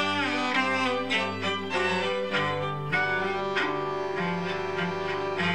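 Background music led by bowed strings, with sustained notes and a short downward slide at the start.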